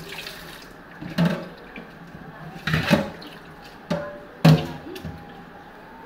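Water running from a kitchen tap into a stainless-steel sink, shut off within the first second, followed by a few separate knocks and clatters in the sink.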